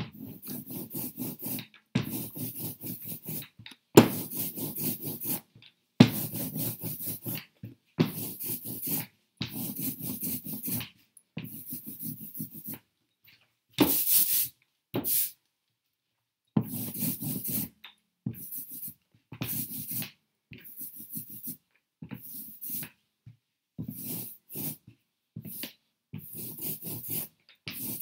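Rubber ink roller (brayer) rolled back and forth over a carved printing block, spreading a thin film of tacky printing ink: repeated sticky shush strokes about a second long, with one short pause partway through.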